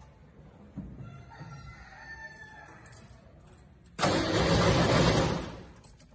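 A rooster crows faintly in the background for about two seconds. About four seconds in, the VW Beetle's air-cooled flat-four is turned over in a start attempt: loud for under two seconds, then it dies away without running on.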